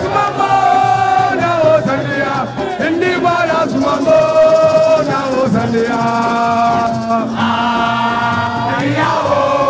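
Music with singing, the voice holding long, steady notes.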